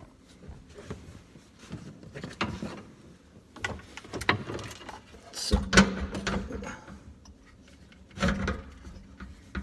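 Irregular clunks, clicks and scrapes of a screwdriver and garbage-disposal mounting parts being handled under a sink, with a louder knock about six seconds in.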